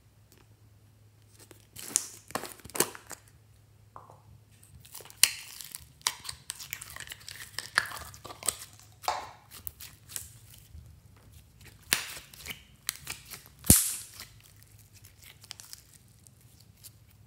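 Thin plastic slime containers being handled and squeezed, crinkling and clicking, with sticky crackles as the slime is pulled out and stretched. There are irregular bursts and one sharp snap near the end.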